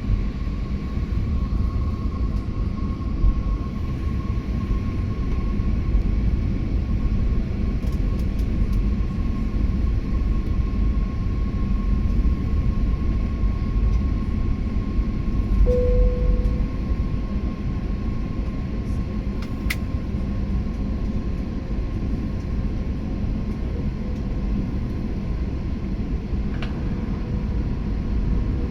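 Jet airliner cabin noise on approach: a steady low rumble of engines and airflow with a faint steady whine, joined about halfway through by a second, lower steady hum, and a few faint clicks.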